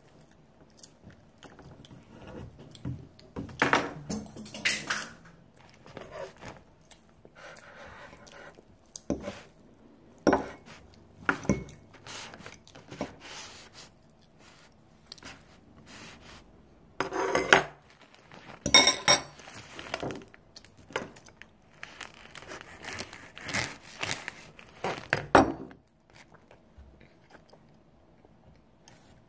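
Metal fork clinking and scraping against a ceramic plate as pieces of cake are cut and lifted, in clusters of sharp clicks, with close-miked chewing in between. The clinks stop a few seconds before the end.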